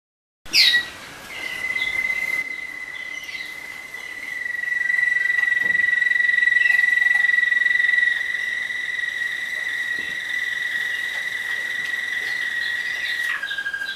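Waterslager (Malinois) song canaries singing a long, steady high note that opens with a quick downward sweep. The note swells louder in the middle, then steps down to a slightly lower held note near the end.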